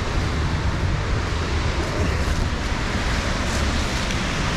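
Steady rush of a large waterfall, with a deep rumble and wind buffeting on the microphone.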